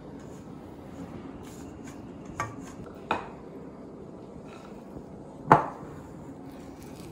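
A silicone spatula folding whipped cream into a thick cream mixture in a glass bowl, with soft scraping and three sharp knocks of kitchenware, the loudest about five and a half seconds in.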